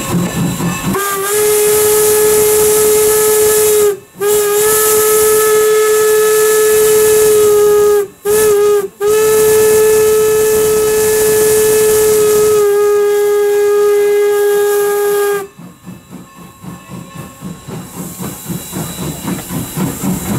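Steam whistle of Norfolk & Western No. 475, a 4-8-0 steam locomotive, blowing a steady single-tone whistle in four blasts: long, long, short, long. That is the standard grade-crossing signal. After the last blast the locomotive's exhaust chuffs go on in a steady rhythm as it runs.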